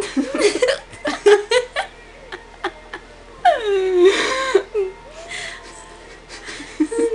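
Laughing and giggling in short bursts, with one long high laugh that falls in pitch about three and a half seconds in.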